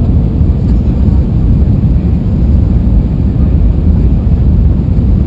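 Steady, loud low rumble of engine and airflow noise in the passenger cabin of an Airbus A320-200 during its descent.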